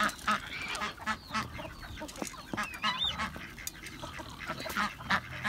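Mixed flock of ducks, chickens and guinea fowl calling over one another in many short, overlapping cries as they crowd in for feed.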